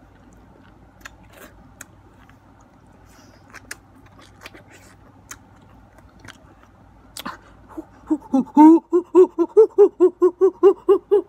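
Mouth sounds of someone eating mango: soft, sparse clicks of biting and sucking on the fruit. About eight seconds in, a voice breaks into a quick, regular run of short pitched 'hooh' hoots, about three a second, much louder than the eating.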